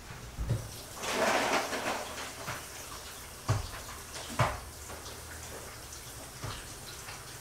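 Kitchen tap running water into a bowl of shrimp, loudest in a rush about a second in, then quieter. Two sharp knocks a little past the middle.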